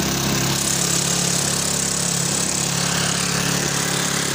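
A 150cc loader rickshaw's single-cylinder engine running steadily at idle, now that its wiring fault and starting problem have been fixed.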